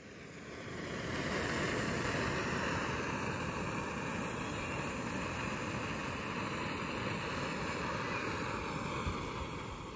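Backpacking camp stove burner running with a steady rushing hiss, coming up over the first second or so and holding level, to heat water for oatmeal.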